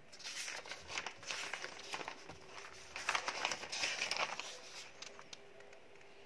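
Printed paper sheets rustling and crinkling as they are handled and leafed through, in two bouts, the second and louder about three seconds in.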